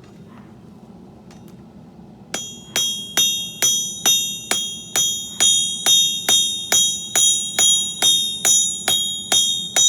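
Hammer blows on an anvil while forging, starting a couple of seconds in and going on at a steady pace of about two strikes a second. Each blow rings with a bright, bell-like tone, over a low steady hum.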